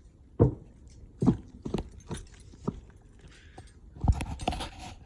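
A handful of irregular thumps and knocks, some close together and others a second or more apart, with light scraping and rattling between them.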